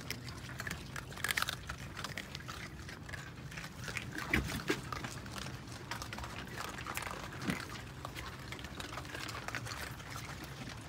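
Raccoons eating dry dog food kibble: a stream of small crunching, smacking and crackling clicks, with a couple of louder knocks about four and a half seconds in. A steady low hum runs underneath.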